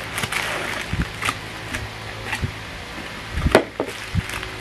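Bubble wrap crinkling and rustling while a wrapped camera lens is handled and lifted out of its cardboard box. There is a louder knock about three and a half seconds in.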